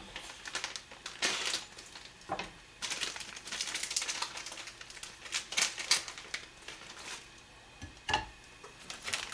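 Plastic wrapper of a pack of frozen chicken breast steaks crinkling and rustling in short bursts as a patty is taken out. There is a soft knock about eight seconds in as the frozen patty is set in the frying pan.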